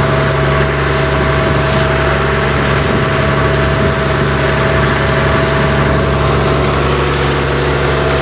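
An engine running steadily at a constant speed, an even low drone with no change in pitch or level.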